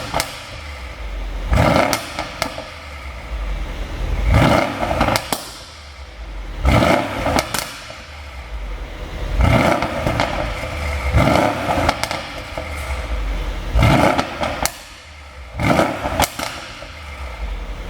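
2013 Mercedes-Benz CLS 63 AMG's twin-turbo V8 blipped to a rev again and again, about every two to three seconds, with sharp pops and crackles from the exhaust around each rev and a low idle between: the exhaust pop tune.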